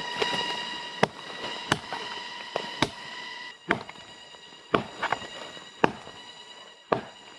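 Chopping blows of a blade into the trunk of a dead, dried-out standing tree: about ten sharp strikes at an uneven pace of roughly one a second.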